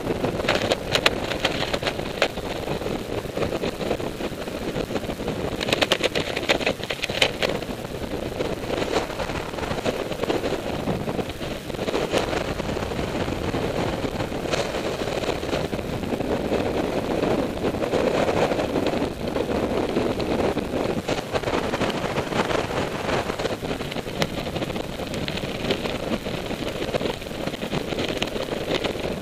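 Wind buffeting the camera microphone during a descent under an open parachute canopy: a steady rushing noise with spells of rapid crackling near the start, about six seconds in, and near the end.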